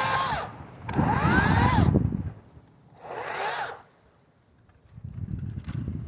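Kobalt 40V Max cordless electric chainsaw run in short trigger bursts, its motor whine rising and falling with each squeeze, three times. A lower, rough noise follows for about a second near the end.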